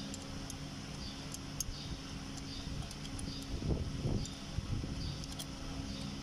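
A steady low hum, with a few faint metallic clicks and two soft knocks around the middle as a wrench and holding tool work the centre bolt of a car AC compressor's clutch.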